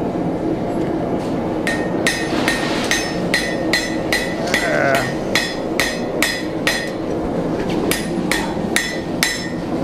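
Blacksmith's hammer striking hot steel on an anvil, with a ringing blow about two and a half times a second and a short break partway through, over a steady background noise.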